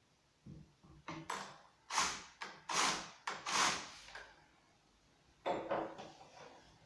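Knocks and clatter of hard objects being handled: a quick run of them from about half a second to four seconds in, then two more near the end.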